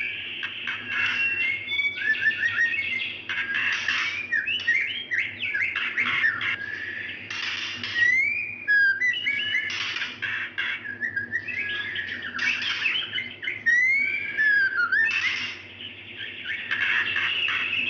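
Female white-rumped shama calling for a male, as a breeding-condition hen does: a continuous run of quick whistled notes gliding up and down, mixed with short harsh clicks, with a brief lull near the end.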